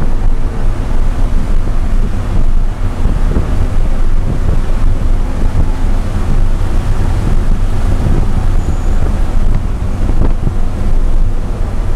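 BMW E90 330i's straight-six engine under load inside the cabin at high speed, the revs climbing and then easing back about ten seconds in, mixed with heavy wind and road noise buffeting the microphone.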